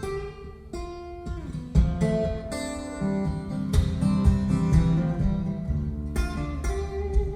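Acoustic guitar strummed and picked in an instrumental passage between sung verses, with sustained chords and strums every half second or so.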